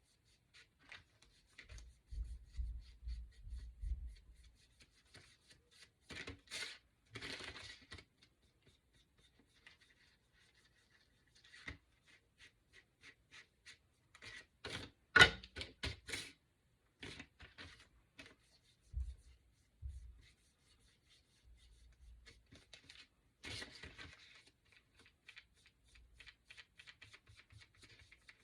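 Paintbrush strokes rubbing and scratching on small wooden cutouts, in short scattered runs, with light clicks and knocks as the pieces are handled; a sharper click about fifteen seconds in.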